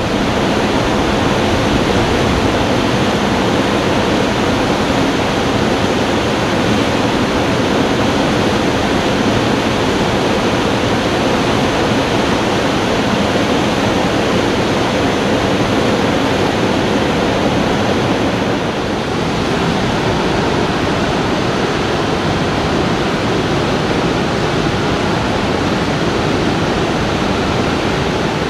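Whitewater river rapids rushing: a loud, steady wash of water noise.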